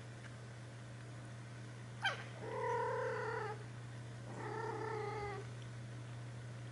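Birman cat meowing twice: two drawn-out calls of about a second each, the first starting with a sharp high squeak that drops quickly in pitch.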